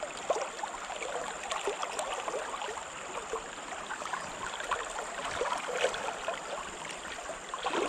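River current flowing steadily, with small gurgles and trickles.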